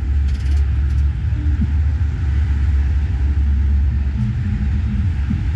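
Steady low rumble of cars, a deep drone that breaks up about four seconds in.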